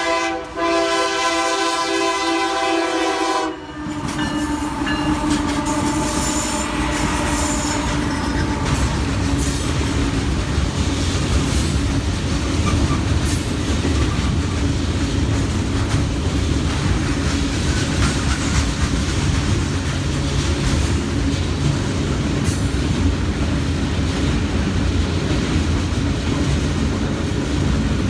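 Freight locomotive's five-chime K3L air horn sounding, a short break then a longer blast that cuts off about three and a half seconds in. The diesel locomotives and freight cars then roll past with a steady rumble and wheels clacking on the rail joints.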